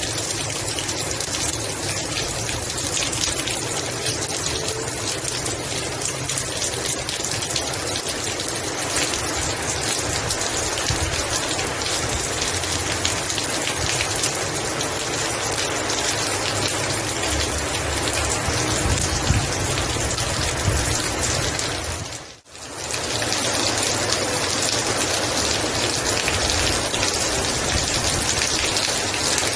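Heavy rain falling steadily, a dense even hiss of drops. It cuts out for a moment about three-quarters of the way through and comes straight back.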